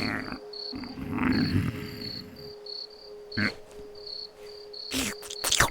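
Cartoon nature ambience: a cricket chirping in a steady rhythm of about two chirps a second over a low steady tone, with a few short sharp clicks near the end.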